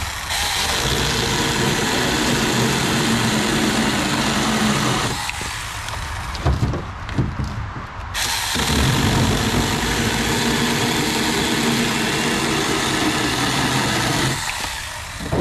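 Saker cordless mini electric chainsaw running and cutting into a branch in two long runs. It stops for about three seconds in the middle, when a few knocks are heard.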